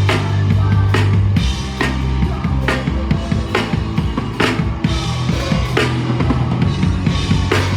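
Live punk rock band playing loudly, with the drum kit to the fore: snare and cymbal crashes about once a second over bass drum and a sustained bass line.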